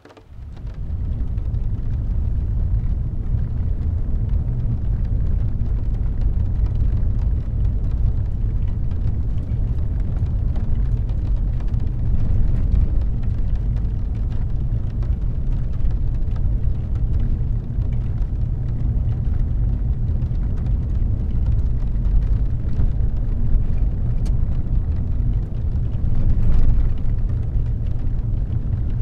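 Steady low rumble of a car driving on a wet road, heard from inside the cabin, with a fainter hiss above it. It rises from a brief dip at the very start.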